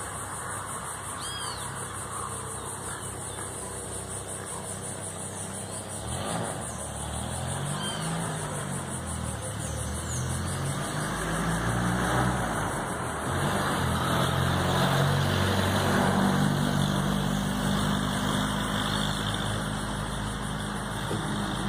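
An engine running, its pitch rising and falling, growing louder from about six seconds in and loudest in the second half. A steady high-pitched buzz runs under it.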